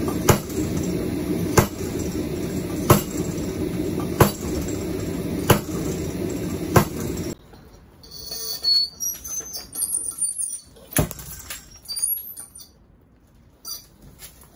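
Homemade beam power hammer's ram, about 53 lb and dropped by gravity, striking red-hot steel on the anvil die six times, about one blow every 1.3 seconds, over a loud steady rushing noise. After an abrupt drop to a quieter scene with light high squeaks and rattles, a single sharp blow comes about eleven seconds in as the ram drops on a nut between the dies.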